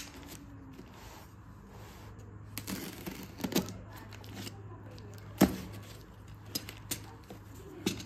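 Box cutter slitting open a plastic courier mailer: crinkling plastic rustles and scattered sharp clicks, the loudest a little past halfway.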